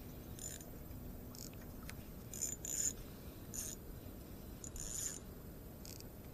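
Spinning reel being wound in short spurts: about seven brief whirs of the gears and line with pauses between, a stop-and-go retrieve of a soft lure.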